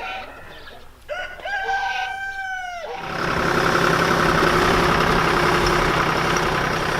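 A rooster crowing once, a long pitched call that rises and then falls away, about a second in. Then a louder, steady rushing noise takes over for the last few seconds.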